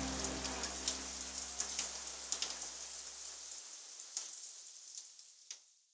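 The last chord of an electric-guitar track rings out and dies away, with its low bass note stopping a little past halfway. A scattered, crackling patter of clicks, like rain or record crackle, runs over it, and everything fades out near the end.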